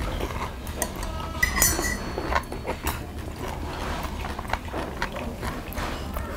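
Metal chopsticks clicking and clinking against metal plates and bowls during a meal, with one ringing clink about a second and a half in.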